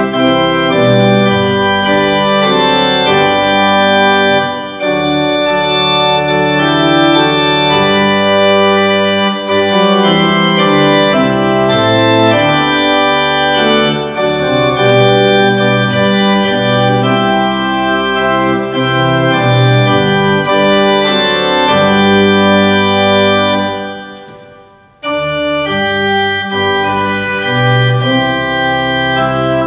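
Organ music playing slow, held chords. About three-quarters of the way through it fades almost away, then comes straight back in.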